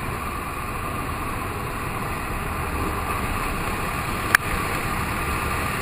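Jump plane's engine and propeller drone steadily, with air rushing past the open door. A single sharp click about four seconds in.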